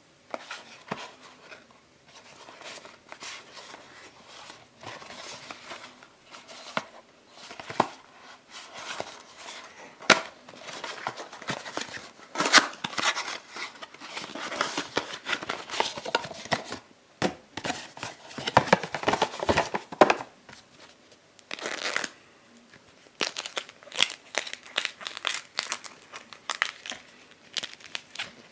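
Hands opening a small cardboard box and pulling out a rubber bicycle inner tube: irregular rustling and scraping of cardboard, with scattered sharp clicks and knocks as the flaps are folded back.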